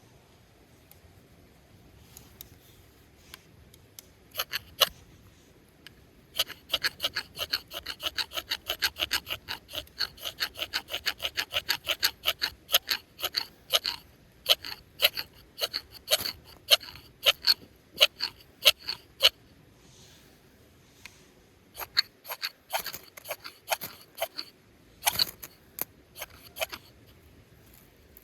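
Quick, repeated scraping strokes, about three or four a second in a long run from about six seconds in, then slower and scattered near the end.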